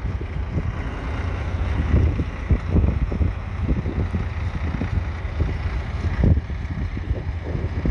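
Massey Ferguson 65 tractor's diesel engine running as it pulls a two-furrow mounted plough, with wind buffeting the microphone in uneven gusts.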